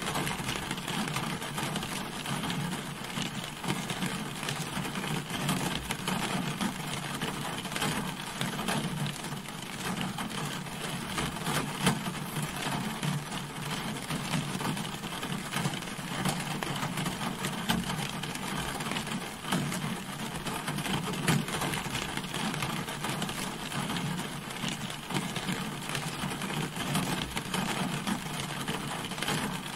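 Rain falling on a car, a steady dense patter of drops with a few louder single hits.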